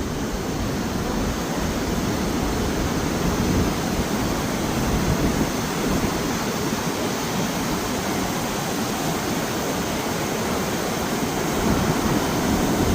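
Vernal Fall's water rushing steadily, an even, unbroken wash of falling-water noise.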